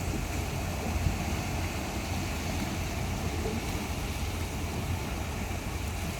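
Steady sea-and-wind ambience: an even rush of wind and water with a constant low rumble underneath.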